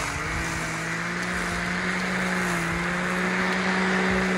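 Small electric motor of a 3D-printed toy lawn mower spinning its plastic blades in grass: a steady hum with a hiss over it, dipping briefly in pitch about a fraction of a second in as the blades take load, then recovering.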